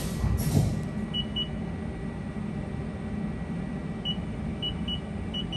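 Haas ST-30Y CNC lathe turret indexing: a short burst of hiss and a low thud in the first second, then a steady low machine hum. Several short high electronic beeps from the control come and go over it.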